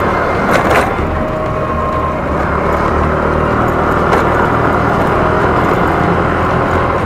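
Yamaha Fino scooter's single-cylinder four-stroke engine running steadily under way, with road noise. A brief sharp knock comes about half a second in and another about four seconds in.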